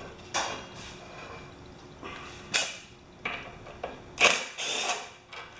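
Sharp clicks, knocks and short metallic rattles of hand tools and engine parts as the ignition coil is taken off a Honda HRA214 lawn mower. There are several separate clicks, with a longer scraping rattle near the end.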